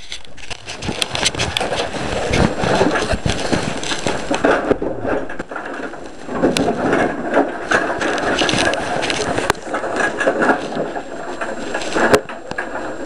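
A large plastic bag of empty bottles and cans being handled: steady rustling with irregular clinks and clatters of glass and aluminium, mixed with rubbing noise on the hidden camera's microphone.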